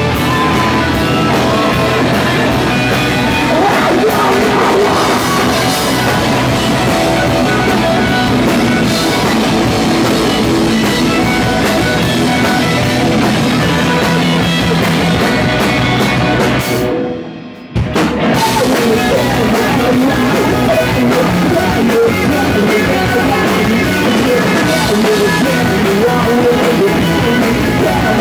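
Live rock band playing loud, with electric guitars, drum kit and shouted singing. About two-thirds of the way through the sound drops away for under a second, then the whole band comes back in at once.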